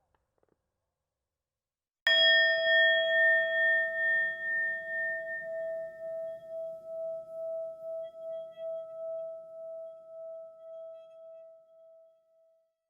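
A single struck bell-like metal tone about two seconds in, ringing on with a slow pulsing waver and fading away over about ten seconds.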